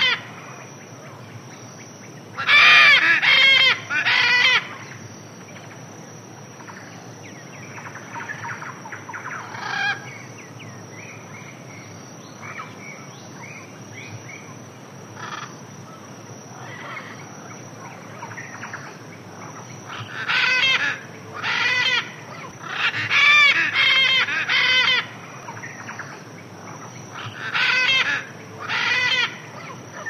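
Birds calling: loud calls in pairs, about two or three seconds in and again several times in the last third, with fainter calling in between over a steady background hiss.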